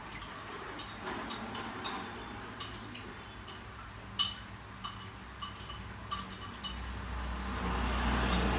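Scattered light clicks and clinks, roughly one or two a second, with one sharper click about four seconds in, over a faint background that swells near the end.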